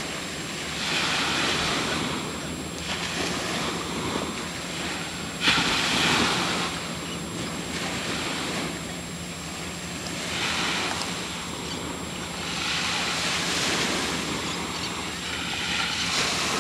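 Ocean waves washing in surges every two to three seconds, with wind on the microphone; the loudest is a sudden surge about five and a half seconds in.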